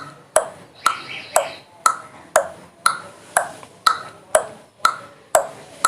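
Sound-effect preview played back: a sharp tick with a short ringing tail, repeated evenly about twice a second.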